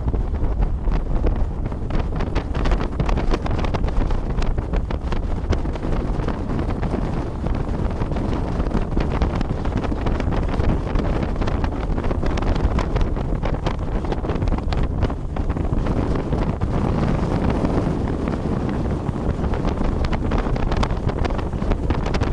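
Wind buffeting the microphone on a moving boat: a loud, unbroken low rumble with rapid crackling flutter.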